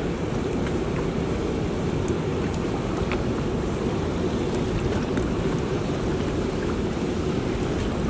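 Steady rush of water churning through the outflow below a dam spillway, an even low noise with no pitch.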